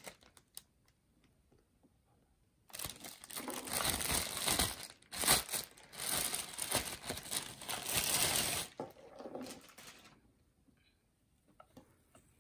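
Thin clear plastic bag crinkling and rustling as it is pulled off a vacuum floor nozzle, starting about three seconds in and going on for about six seconds before it dies away.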